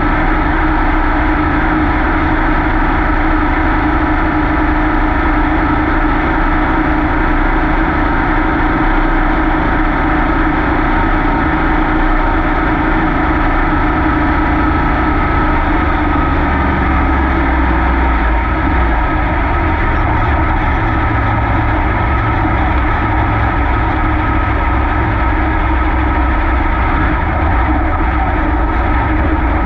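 Dirt Super Late Model race car's V8 engine running steadily at an even engine speed, heard from on board the car, its low rumble growing stronger about halfway through.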